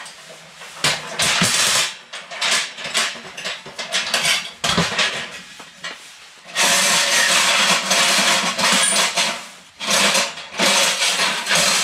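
Knocks and scrapes of hard materials being handled and slid into place. A long scraping stretch of about three seconds comes past the middle, and another near the end.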